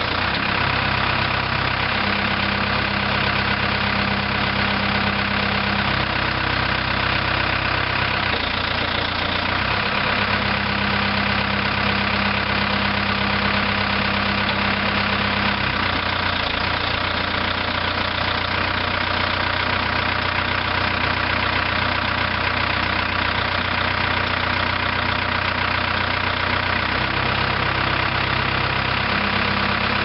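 The 70 hp diesel engine of a 1999 New Holland LB75 backhoe running steadily, its tone shifting slightly a few times.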